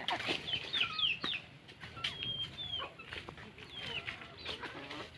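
Birds chirping: many short, high chirps overlapping.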